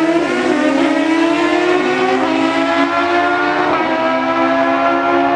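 Chevrolet Camaro Z28 V8 engines running hard at high revs. They make a loud, steady drone whose pitch holds nearly level, dipping slightly a couple of times.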